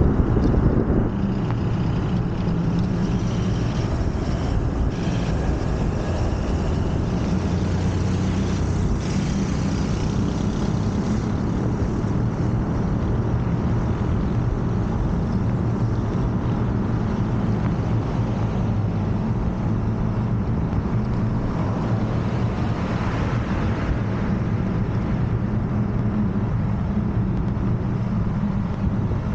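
Moped engine running steadily on the move, with wind rushing over the microphone.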